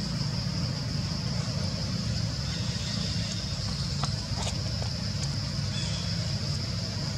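Steady outdoor background noise: a low rumble under a continuous high-pitched buzz, with a few faint clicks about four seconds in.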